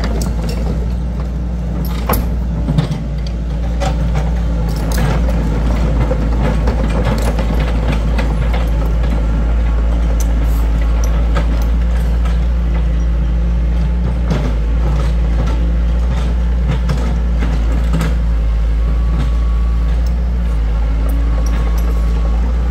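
Small crawler excavator's diesel engine running steadily, with scattered clanks and knocks from the machine as it moves; the loudest knock comes about three seconds in.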